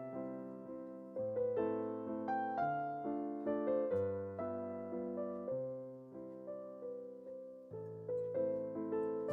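Background music: a gentle piano piece, slow bass notes under a simple melody.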